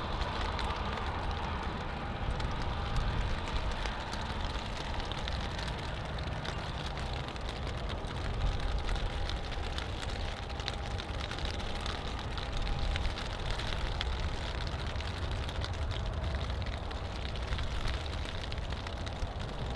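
Qantas Boeing 787-9's Rolls-Royce Trent 1000 jet engines at takeoff power, a steady roar with a faint whine as the airliner rolls down the runway and climbs away, with rain hiss mixed in.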